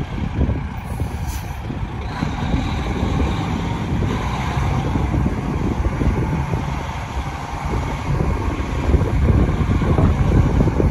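2005 International 9400i semi tractor's diesel engine running steadily as the truck drives slowly, with a brief hiss of air about a second in.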